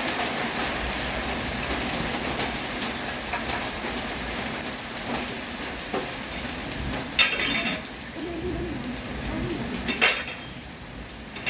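Heavy rain falling in a steady hiss. Two brief, louder sounds of unclear source cut through it, about 7 and 10 seconds in, and the hiss drops a little near the end.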